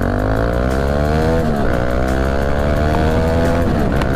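Bajaj Dominar 400's single-cylinder engine accelerating under hard throttle: the note climbs, drops at an upshift about one and a half seconds in, then climbs again until another shift near the end.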